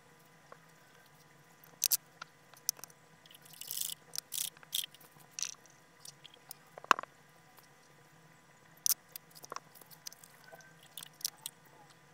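Close-up wet handling sounds of cleaning a coin: scattered small clicks and a few short rustling bursts as soap foam is cleared from the coin, with one louder knock about seven seconds in. A faint steady hum runs underneath.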